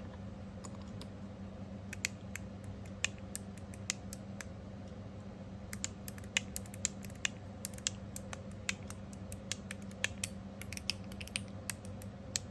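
Copper mechanical fidget slider being slid back and forth by thumb, its ball-and-spring detents giving short, sharp metallic clicks at an irregular pace, sparse at first and quicker in the second half. The clicks lack the spring ping.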